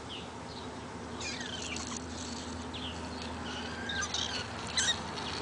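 Young kittens giving a series of short, high-pitched mews and squeaks, over a steady low hum.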